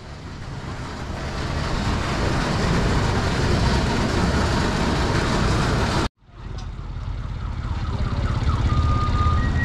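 Busy street noise with vehicle traffic: a dense, steady roar for about six seconds, cut off suddenly, then lower rumbling traffic. Near the end come two short steady high tones, like an alarm or horn.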